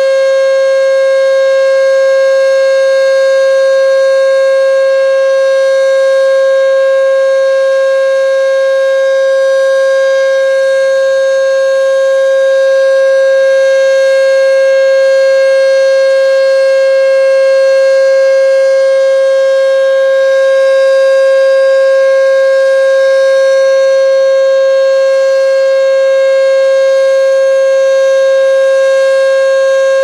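Sentry 14V outdoor warning siren sounding its steady Alert signal: one loud tone held at a single pitch throughout, with no rise or fall.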